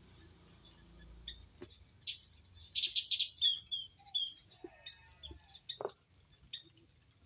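Common iora chirping: short, high chirps, scattered and coming thickest in a quick cluster about three seconds in.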